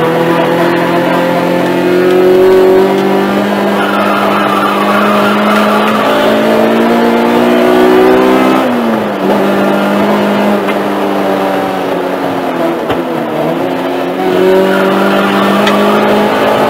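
Race car engine heard from inside the cabin, running hard at speed: its note climbs steadily for the first eight seconds, falls sharply about eight and a half seconds in, then climbs again near the end, over road and wind noise.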